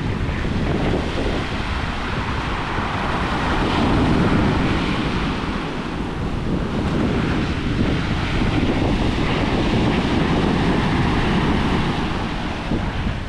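Small surf breaking and washing up over a rocky beach shelf in a steady hiss of foam that swells and ebbs with each wave, with wind buffeting the microphone.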